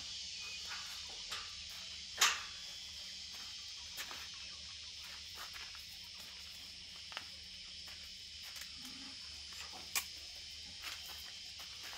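Steady high-pitched insect chorus of crickets or cicadas, with a few light clicks and knocks scattered through; the sharpest click comes about two seconds in.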